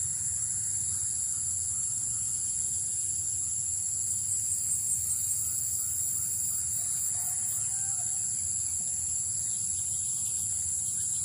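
Steady high-pitched chorus of insects, such as crickets, with a short run of quick chirps about four to five seconds in.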